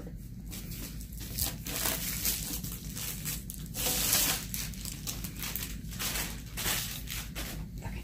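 Clear plastic wrapping crinkling and rustling in irregular bursts as a rolled diamond painting canvas is pulled out of it and handled, with a longer, louder stretch of rustling about four seconds in.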